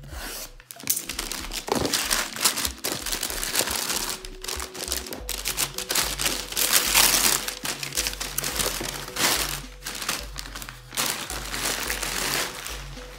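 Brown wrapping paper being pulled off a parcel and crumpled by hand, in irregular rustling bursts.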